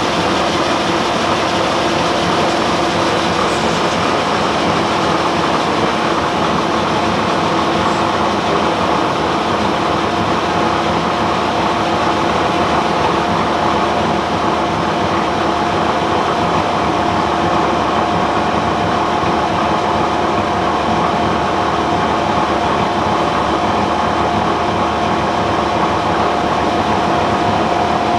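Triple roller mill running steadily as it grinds Prussian Blue pigment into boiled linseed oil, a constant mechanical hum with a few held tones that does not change.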